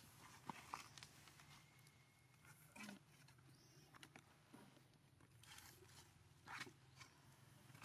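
Near silence: faint outdoor quiet with scattered small clicks and soft rustles, a slightly louder brief rustle about three seconds in and again near the end.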